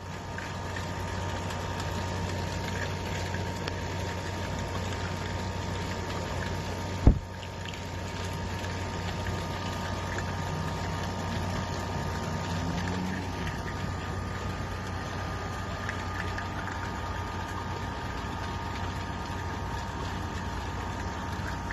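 Steady hum of a running machine, a low drone with a few thin steady tones above it. A single sharp thump about seven seconds in is the loudest moment.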